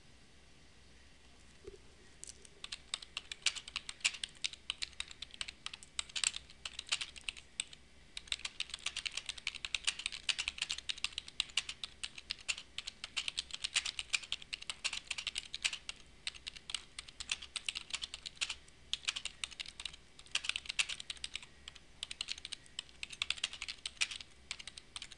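Typing on a computer keyboard: a fast, uneven run of key clicks that starts about two seconds in and goes on with only a few short pauses, as a sentence is typed out.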